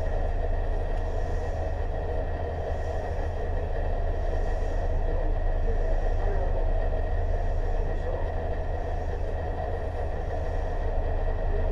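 Tobu 6050 series electric train, motor car MoHa 6169, giving a steady low rumble and hum, with no distinct knocks or changes.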